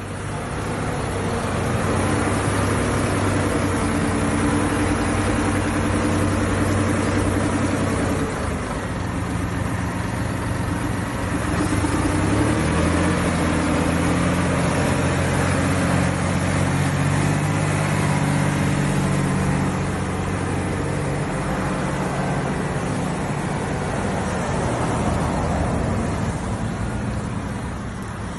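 Massey Ferguson 5610 tractor's four-cylinder diesel engine running as the tractor drives off, its engine note shifting up and down a few times.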